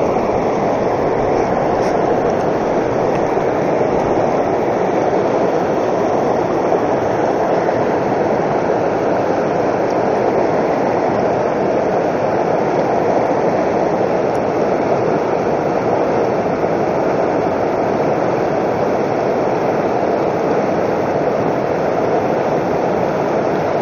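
Fast mountain river rushing over boulders in shallow rapids: a steady, unbroken noise of white water.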